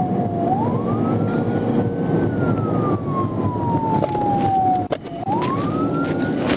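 Police patrol car siren on its slow wail, rising, falling for a few seconds, then rising again, over steady road and engine noise from a car driving fast in pursuit. The sound drops out briefly about five seconds in.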